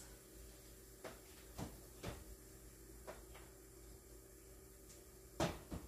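A few light knocks of a cooking utensil against a stockpot as the soup is checked, spaced a second or so apart, with the loudest pair near the end.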